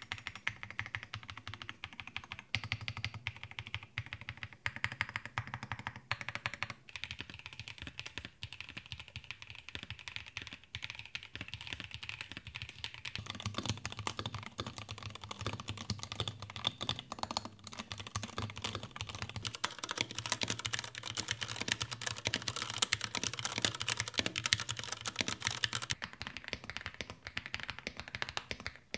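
Continuous typing on an Akko MonsGeek M1 V5, a full-aluminium 75% mechanical keyboard with lubed linear switches and PBT keycaps: rapid keystrokes, faster and louder from about halfway through. The keystrokes have a deep, muted 'lok lok' without case ringing, a sign of the well-damped inside of the case.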